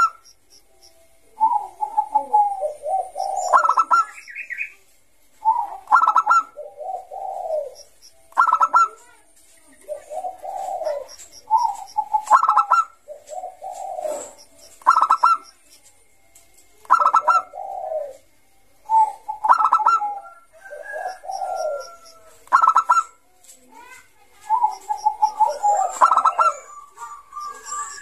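Bangkok-strain zebra dove (perkutut) singing: its typical song of rapid staccato cooing notes, repeated phrase after phrase every two to three seconds.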